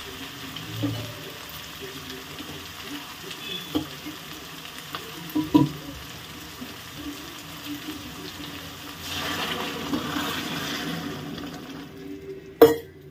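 Chopped onions, green chillies and tomatoes frying and sizzling in an aluminium kadai while being stirred with a wooden spatula, which knocks against the pan a few times. Near the end a sharp knock, after which the sizzling stops.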